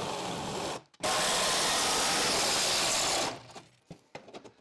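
Handheld cordless power tool cutting sheet metal along a body seam: a short run, a brief stop about a second in, then a longer run of about two seconds that stops a little past three seconds, followed by a few light clicks of handling.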